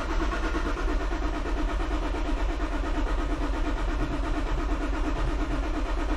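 Starter motor steadily cranking a Toyota 1G-FE inline-six that does not catch or fire. This is a no-start on a freshly installed Speeduino standalone ECU: fuel is getting through, and the owner suspects an ignition problem.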